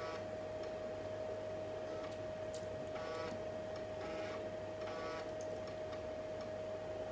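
3.5" floppy drive of an Elonex 386 laptop reading DOS 6.22 install disks, its head stepper giving short, faint buzzes several times. Under it runs a steady high-pitched whine and a low hum from the machine.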